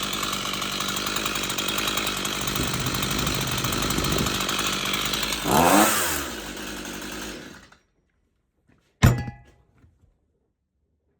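Stihl MS 162 two-stroke chainsaw running at a raised idle, with a brief rev about five and a half seconds in. Then the engine stops. A single sharp knock follows about nine seconds in.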